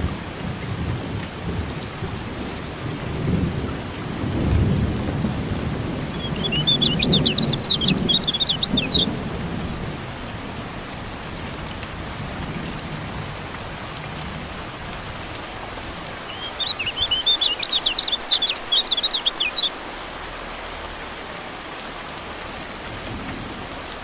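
Steady rain with thunder rumbling through the first half, while a yellow white-eye (kecial kuning) twice sings a fast, high twittering phrase of about three seconds each.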